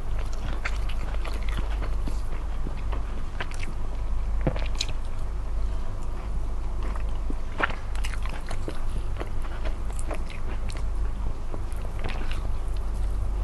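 Close-miked chewing and biting of smoked chicken, with irregular wet clicks and small crunches, over a steady low hum.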